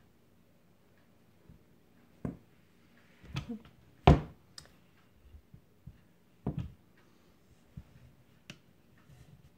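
Wooden-armed wire soap cutter and its plastic cutting box knocking and clicking as a loaf of soap is pushed along and sliced into bars. There are about half a dozen separate sharp knocks, the loudest about four seconds in.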